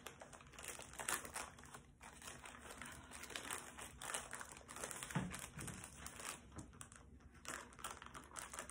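Clear plastic wrapping around a rolled diamond painting canvas crinkling softly and irregularly as hands handle and pull at it.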